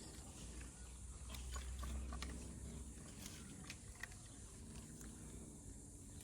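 Kittens chewing food: faint, irregular small clicks of eating.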